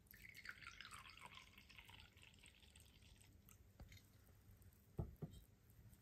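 Liquid poured from a textured glass carafe into a square textured glass cup, trickling for about three seconds, its pitch falling as the stream settles. About five seconds in, two sharp knocks as the glass carafe is set down on the wooden tray.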